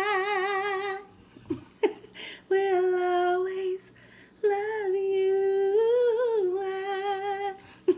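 A woman singing long held notes with vibrato close into a microphone held at her mouth, in three phrases with short pauses between them. The last phrase rises briefly in pitch.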